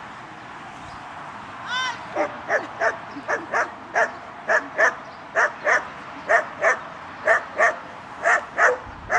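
Dog barking steadily in quick pairs, about two to three barks a second, while guarding the protection helper after releasing the sleeve. A short whine comes just before the barking starts, about two seconds in.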